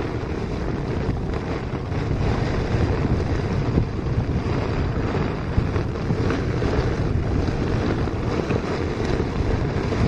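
Torrential rain and gusting wind beating on a tent, heard from inside, with the tent fabric shaking and flapping. A dense, steady rush of noise with no break.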